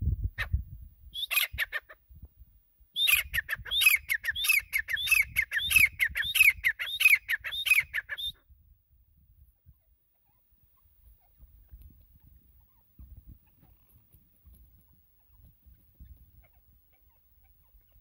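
Grey francolin calling: a short call about a second in, then a fast run of high, falling notes, several a second, that stops about eight seconds in.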